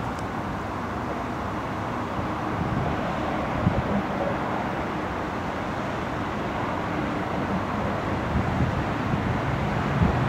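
Freight train hauled by a DB class 155 electric locomotive approaching: a steady rumble that slowly grows louder, with a couple of brief knocks.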